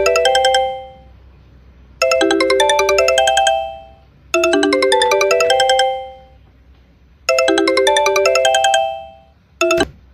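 Electronic phone ringtone for an incoming call: a short phrase of quick, bright melodic notes repeats with pauses in between. It cuts off abruptly just after starting again near the end.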